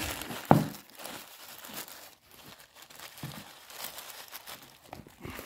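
Thin plastic bag crinkling as a bagged part is handled, with one sharp knock about half a second in.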